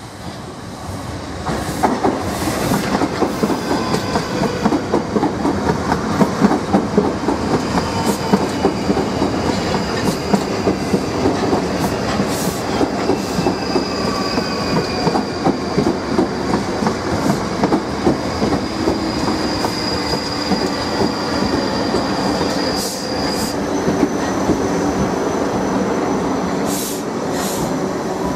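A Class 458/5 Juniper electric multiple unit running past on the rails, its wheels clattering in a rapid stream of clicks over the track. A steady high whine runs through most of it and shifts to a slightly higher tone near the end.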